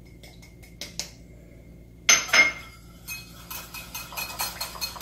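A few light clinks, then a louder clatter about two seconds in, then a small wire whisk beating quickly against a white bowl, about five strokes a second, mixing cornstarch into cooking liquid for a slurry.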